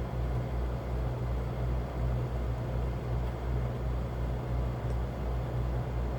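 A steady low hum and rumble with a light hiss over it, wavering slightly but with no sudden sounds.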